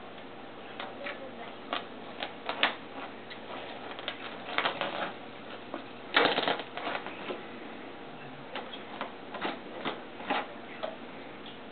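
A cat pawing and batting at a toy under the bottom edge of a white appliance on a tile floor: irregular light clicks and taps, with a louder half-second scraping burst about six seconds in.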